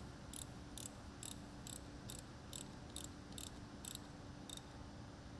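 Faint ratchet wrench clicking evenly, about two clicks a second, while loosening the 10mm negative battery terminal bolt, over a steady low hum.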